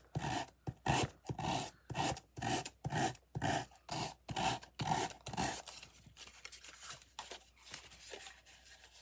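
Sandpaper rasping back and forth over the edge of heavy textured paper, about two strokes a second, sanding off the excess; about five and a half seconds in the strokes stop and give way to softer, irregular rubbing.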